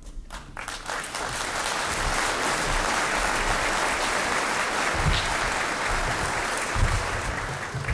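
Audience applauding, swelling over the first second and easing off near the end, with a couple of low thuds in the second half.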